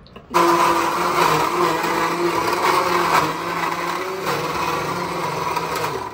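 Electric mixer grinder with a steel jar blending chopped mango pieces into a shake. It switches on abruptly just after the start, runs steadily, and cuts off near the end.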